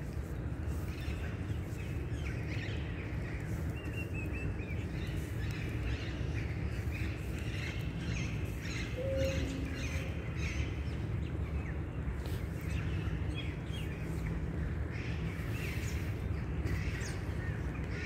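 Small birds chirping and calling on and off over a steady low rumble, with one short lower note about halfway through.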